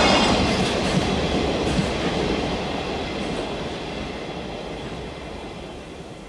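Freight train of container flat wagons receding after passing, its wheel and rail noise fading steadily away. A high ringing dies out over the first few seconds.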